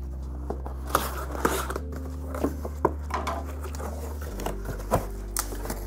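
Folding knife slitting the packing tape on a cardboard box, then the cardboard box being handled and its lid lifted open, with short clicks, scrapes and rustles.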